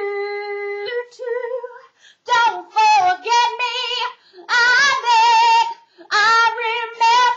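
A woman singing unaccompanied: held notes with vibrato and short melodic runs, in several phrases with brief pauses between them.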